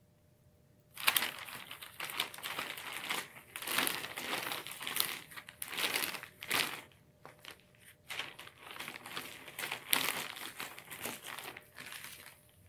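Plastic shopping bags crinkling and rustling in irregular bursts as they are handled, starting about a second in.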